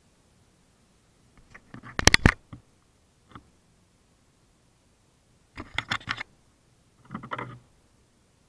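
Fingers handling an action camera right at its microphone: bursts of sharp clicks and rubbing, loudest about two seconds in, a single tick just after, then two more bursts in the second half.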